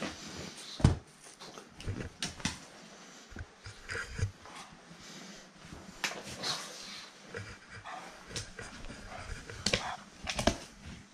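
Pug sniffing and breathing noisily, with scattered light knocks and a louder thump about a second in.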